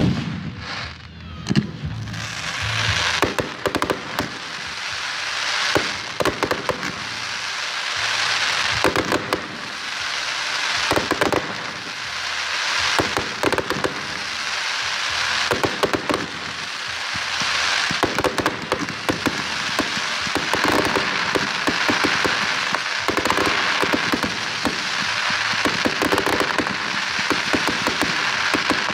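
Aerial fireworks going off: sharp bangs from bursting shells over a dense crackling hiss. The bangs come every second or two at first, then pile up into an almost continuous barrage in the second half.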